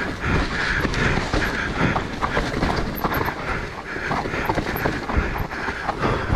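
Mountain bike riding down a rough, muddy forest trail: the frame and chain rattle with many small, irregular knocks over steady tyre and wind noise.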